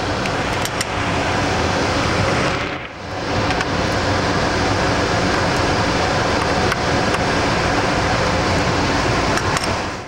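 Steady rushing fan noise that dips briefly about three seconds in, with a few faint light ticks of a small screwdriver working on a laptop hard drive's cover screws.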